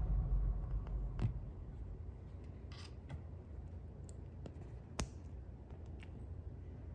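LEGO plastic parts being handled and fitted together by hand: a thin grey bar pushed into small bricks, giving a few small sharp plastic clicks, the clearest about a second in and again near five seconds in.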